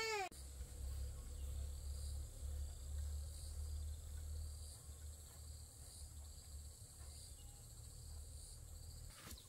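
Insects chirping: a steady high trill with a softer pulse about once a second, over a low rumble. A short rising-and-falling cry cuts off at the very start.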